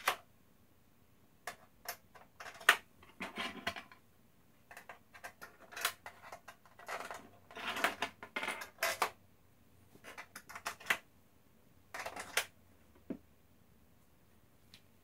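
Small Torx T10 screws clinking and rattling against the Xbox One's steel shield plate as they are handled and set into their holes, in irregular clusters of light metallic clicks.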